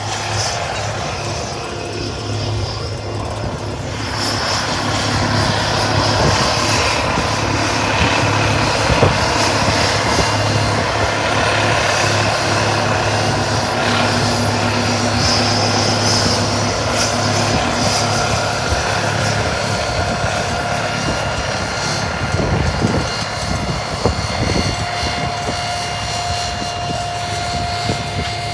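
An engine running steadily with a low hum, getting louder about four seconds in.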